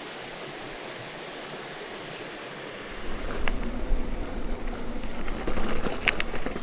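Steady rushing of a waterfall, an even hiss. About three seconds in, a louder, uneven low rumble joins it.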